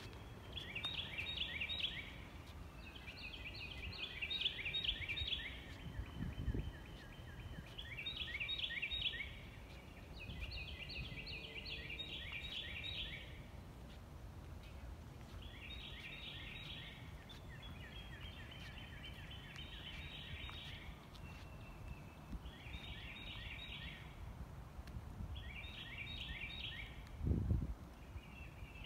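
A songbird singing short, repeated phrases of quick down-slurred whistled notes, one phrase every second or two, over a low outdoor background rumble. A dull thump comes about a quarter of the way in, and a louder one near the end.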